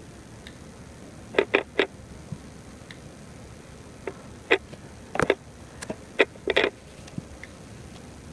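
Fingertips tapping on a tablet's touchscreen, short sharp taps. Three come in quick succession about a second and a half in, and a scattered run of taps follows between about four and a half and six and a half seconds.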